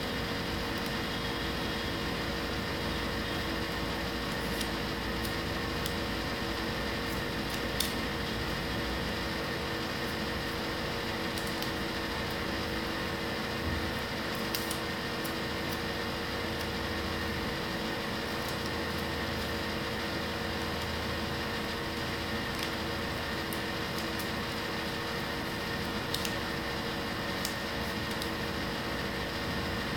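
Steady room hum from a running appliance, holding a few constant tones, with a few faint clicks and rustles as paper petals are handled.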